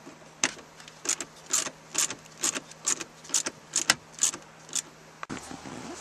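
Hand socket ratchet clicking in short strokes, about two a second, backing out the small 8 mm bolts that hold a shifter's inner dust boot. The clicking stops a little after five seconds in, giving way to a low steady hum.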